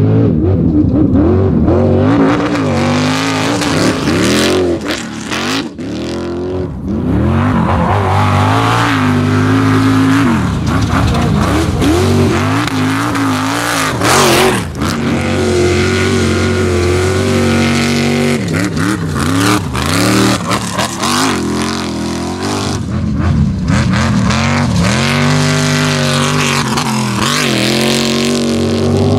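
Off-road race buggy engine at high revs, its pitch rising and falling again and again as it accelerates, lifts off and passes by.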